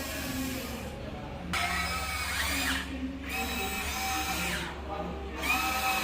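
Huina 1594 RC excavator's electric motors whining, a steady high-pitched whine that comes in about a second and a half in and cuts out briefly twice before starting up again.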